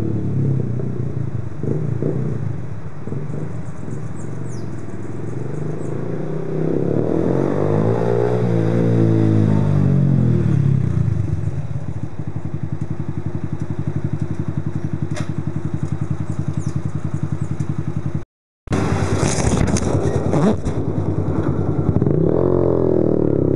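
Yamaha YBR 125 Factor single-cylinder four-stroke engine running through a Roncar aluminium RS aftermarket exhaust. It is revved up and back down, held at a steady throbbing idle, then revved again. The sound drops out completely for a split second about three-quarters of the way through.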